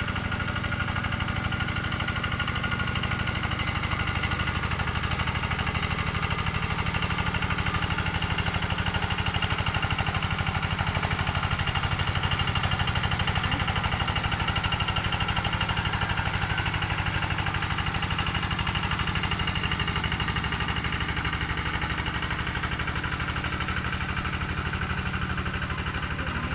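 Engine of a rice-field plowing tractor running steadily, with a fast even firing pulse.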